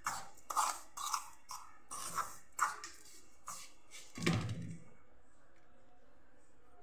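Metal spoon scraping against a stainless steel bowl in a run of quick strokes, stirring a crumbly rice-flour, ghee and sugar mixture, with a heavier knock about four seconds in. After that the scraping stops.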